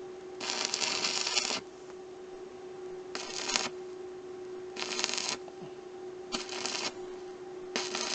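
Electric arc welding a steel pipe onto a stove's flue outlet: five short crackling bursts of about half a second to a second each, a few seconds apart, over a steady hum.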